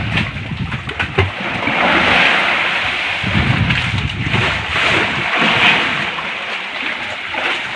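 Steady rushing of wind on the microphone and sea water washing and splashing around a fishing boat, with a few small knocks.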